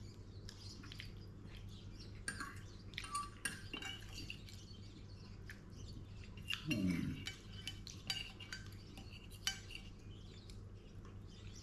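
Fork and knife tapping and scraping on a plate while eating, in scattered light clinks. A brief low vocal sound about halfway through.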